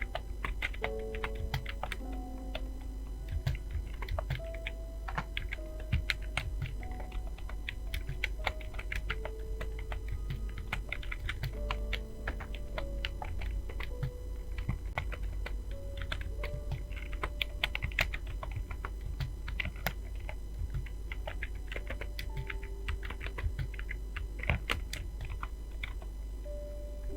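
Fast, irregular typing on a computer keyboard, a steady stream of key clicks, over soft background music with a slow melody.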